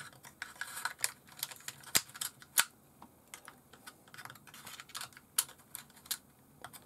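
Metal tweezers and wire leads clicking and tapping against a plastic RC buggy chassis as the leads are fed down through it: scattered light clicks with soft rustling, the sharpest about two and two and a half seconds in.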